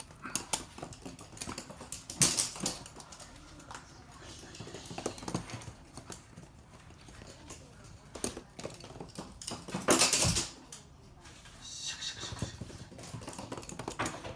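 Toy poodles' claws clicking and pattering on a hard, glossy floor as the dogs run about, with two louder bumps, one about two seconds in and one about ten seconds in.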